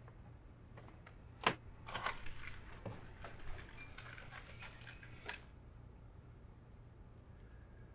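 A sharp click about a second and a half in, then a few seconds of small metal objects jingling and clinking, over a faint steady low hum.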